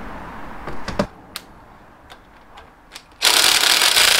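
A sharp knock and a few light clicks, then about three seconds in a DeWalt cordless impact driver starts hammering at a bolt on the engine's flywheel in a loud continuous rattle.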